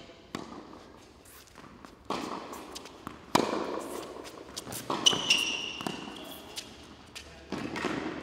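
Tennis ball struck back and forth by racquets during a rally on an indoor court: sharp pops every second or two, each ringing briefly in the large hall, with ball bounces between. A high squeak about five seconds in, like a court shoe sliding.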